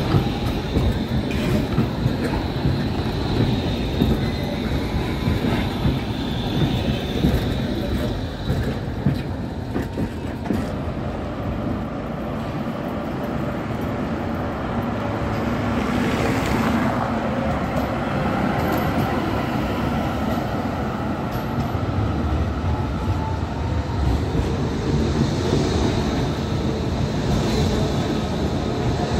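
City trams running past on street track: a steady rumble of steel wheels on rail, with a thin high whine in the first few seconds.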